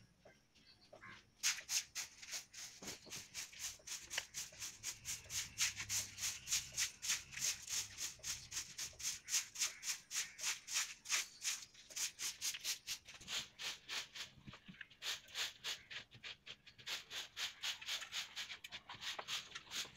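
Short hand broom sweeping a bare earth floor in quick, regular scratchy strokes, about three or four a second. The strokes start about a second and a half in and pause briefly about two-thirds of the way through.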